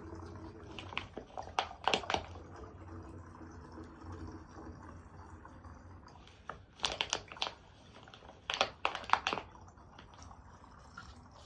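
Clicking and rattling of camping gear being handled, in three short clusters of sharp clicks.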